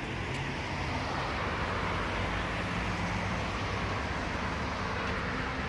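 Steady road traffic noise: car tyres and engines on an asphalt street.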